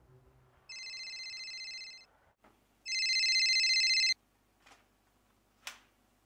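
Mobile phone ringing with an electronic trilling ring: two rings of about a second each, the second louder, followed by two faint clicks.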